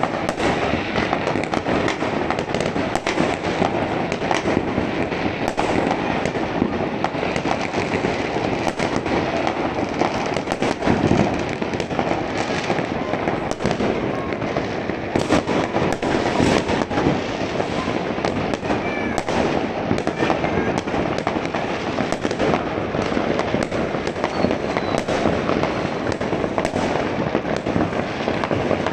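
Many fireworks and firecrackers going off at once: a dense, continuous crackle of bangs and pops, with a louder bang about eleven seconds in.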